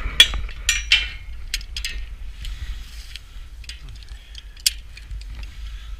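Steel climbing hardware, a lanyard hook and carabiners, clinking and clanking against the lattice tower's steel members as the climber moves up. There are a cluster of sharp clanks in the first second and another sharp one near the end. Wind rumbles steadily on the microphone underneath.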